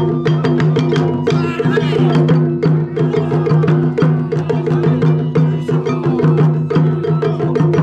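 Japanese taiko drum ensemble playing a fast, dense rhythm: many sharp, clicking strikes over the steady ringing of the drums.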